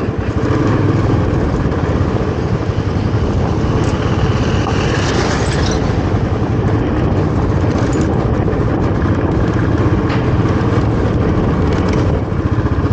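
Royal Enfield Classic 350's single-cylinder engine running steadily under way, heard from the rider's seat. There are a few short knocks and rattles.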